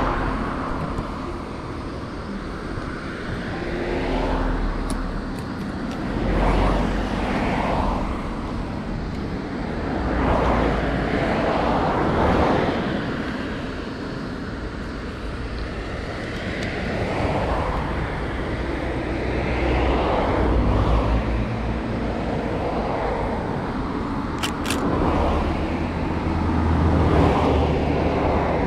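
Road traffic: a steady rumble with vehicles swelling past and fading away every few seconds.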